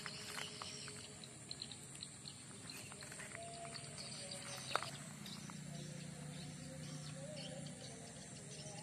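Faint outdoor ambience with scattered bird chirps and a thin, steady high insect-like tone over a low hum. A single sharp click sounds a little past the middle.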